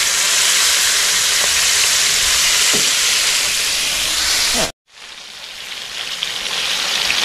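Battered grouper fillets deep-frying in hot oil in a pan, a loud, steady sizzle. A little over halfway through it cuts out abruptly, then the sizzling swells back in.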